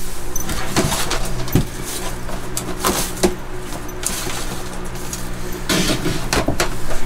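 Coconut husk substrate rustling and crackling as it is scooped and moved by hand, in uneven handfuls with a few sharper scrapes, over a steady low hum.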